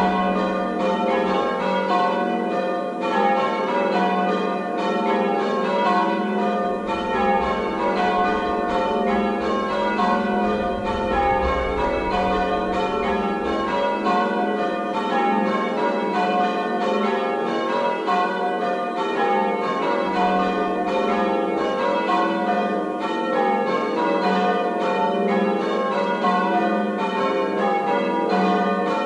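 Change ringing on a ring of six church bells with a tenor of 10–2–12 cwt, tuned in F: the bells strike one after another in a steady, continuous stream, their tones overlapping.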